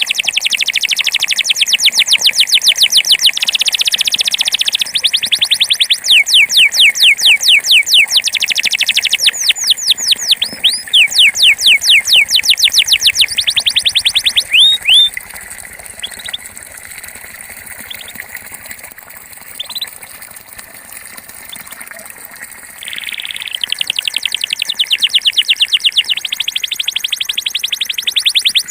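Belgian canary singing its bell-like campainha song: long rolls of rapid, evenly repeated high falling notes, each trill lasting a few seconds. About halfway through the song drops to a few scattered single notes, and the rolls resume near the end.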